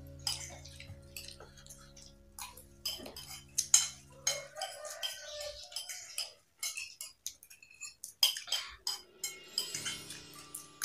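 Metal spoons clinking and scraping on plates as several people eat fried rice, with many short, sharp clicks throughout.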